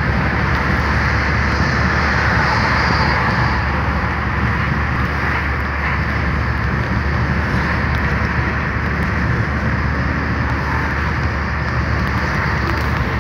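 Steady road noise inside a moving car: engine, tyres and wind heard from the cabin, with a constant low rumble and a hiss.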